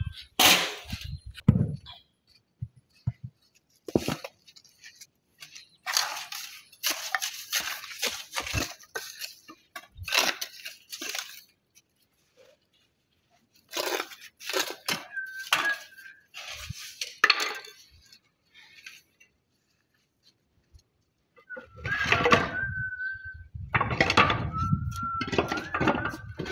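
Flat stone laying in mortar: scattered clinks, knocks and cracks as pieces of slate-like natural stone are tapped, shaped and broken with a hammer, mixed with the scrape of a shovel and trowel in wet sand-cement mortar.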